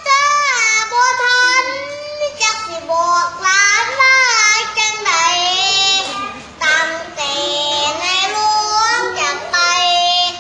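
A young boy singing solo without accompaniment, in long held notes that slide up and down in pitch, with short breaks for breath between phrases.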